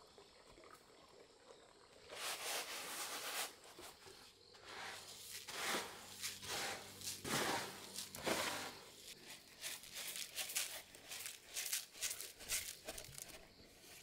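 Dry rice grains pouring and sliding off a woven bamboo tray into a bamboo basket, a hissing rustle that comes in several bursts, then a run of short quick rustles near the end.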